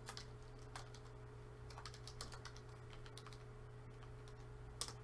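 A computer keyboard being typed on in scattered keystrokes, with a few light clicks spread out and a sharper one near the end, over a steady low hum.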